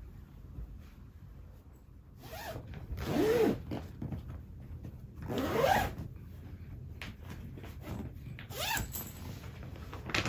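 Zipper on a fabric clothes storage bag being pulled in several strokes, the loudest about three and five and a half seconds in.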